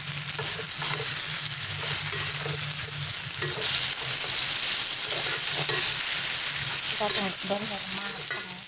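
Chicken, shrimp and chopped vegetables sizzling in hot oil in a wok, a steady hiss, while a metal spatula scrapes and stirs them around the pan.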